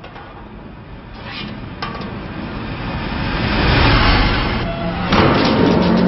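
Sound effects from an animated film's soundtrack: a rushing mechanical noise that swells over several seconds, dips briefly, then surges again near the end.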